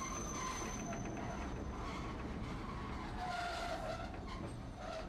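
Streetcar running on its rails with a steady rumble. A little past three seconds in, its wheels squeal briefly, as on a curve.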